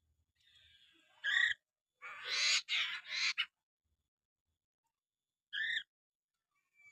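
Poksay mandarin laughingthrush calling: a short clear call, then a loud harsh rasping chatter in two parts, then another short call near the end.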